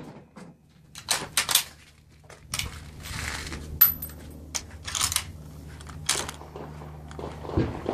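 A string of sharp metallic clicks and clinks, one with a short high ring about four seconds in, over a low steady hum.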